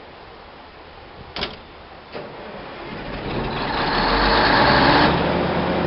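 A ship running aground onto a muddy beach under its own power: a rumble of hull and engine with rushing, churning water and mud builds from about three seconds in. It is loudest just before the high rushing stops sharply, leaving the low rumble. Two short sharp knocks come before it.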